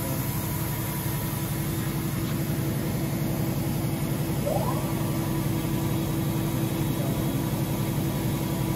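CNC turn-mill center's spindle running steadily at about 2,000 RPM: an even mechanical hum with a faint steady tone, and one brief faint rising sound about halfway through.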